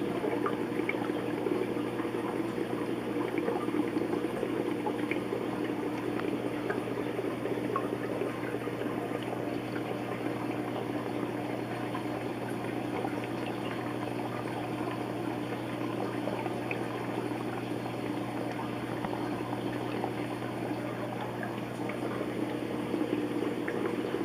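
Aquarium aeration bubbling steadily, a constant wash of water noise with small bubble ticks, over a steady low hum from the tank's pump.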